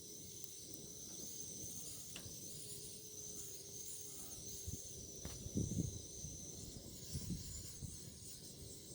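Wood bonfire burning: a steady high hiss with two sharp pops, and two louder low rumbling swells in the second half.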